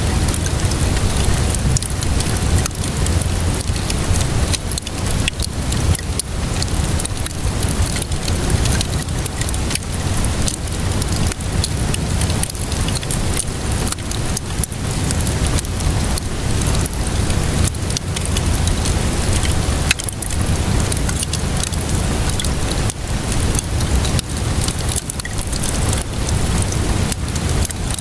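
Wood fire crackling with frequent sharp pops, layered over steady rainfall and a low rumble.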